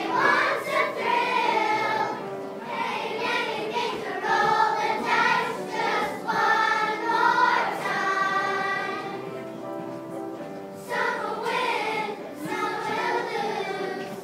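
Children's choir singing in unison, the sung phrases fading briefly about nine seconds in before the voices come back strongly.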